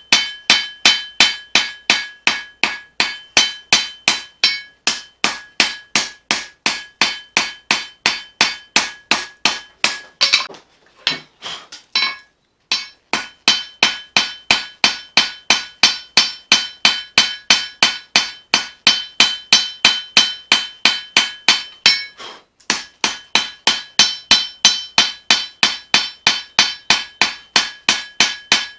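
Hand hammer forging a blade from leaf-spring steel on an anvil: steady blows about three a second, each with a metallic ring. The hammering stops for a couple of seconds near the middle and briefly again later, then resumes at the same pace.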